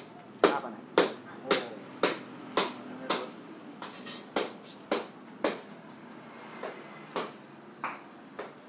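Footsteps at a walking pace, about two a second, with a short pause a little past halfway, over people talking in the background.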